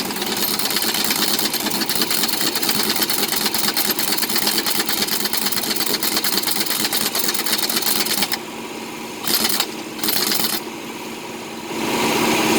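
A fast, metallic mechanical rattle that runs steadily, stops about eight seconds in, comes back in two short bursts, and starts again near the end.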